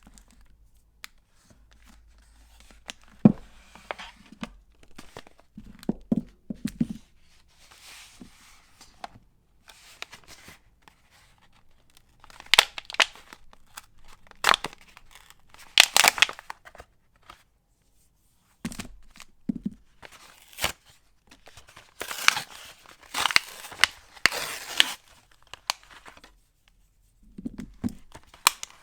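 Soap wrapper being torn open and crinkled by hand: several short tearing rips, the loudest about halfway through and again a few seconds later, between scattered small clicks and handling taps.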